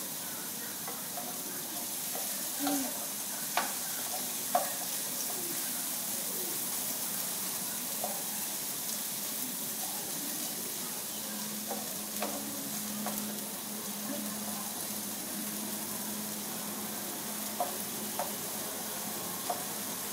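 Food sizzling in a frying pan on a gas stove while it is stirred with a wooden utensil, with scattered light taps and scrapes against the pan. A steady low hum joins about halfway through.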